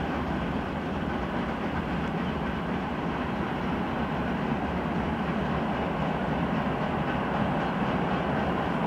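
Freight train's wagons rolling away along the track: a steady rumble with wheel clatter on the rails.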